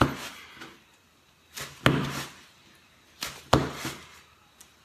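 Pieces of bun dough torn from a strip and set down on a wooden cutting board: three sharp knocks about a second and a half to two seconds apart, each with a quieter sound just before it.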